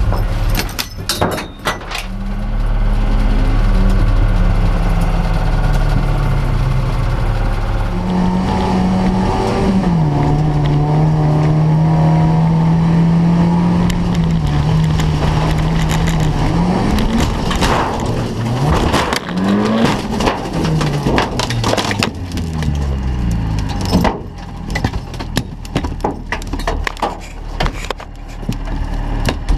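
Race car engine revving hard through the gears, holding high revs for several seconds midway, then falling and climbing again as the revs change. Sharp clicks and knocks come near the start and through the last few seconds.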